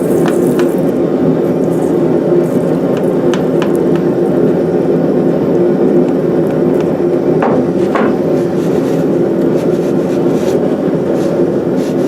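Steady motor hum, with a few light metallic taps and clicks near the start, about three seconds in and about eight seconds in.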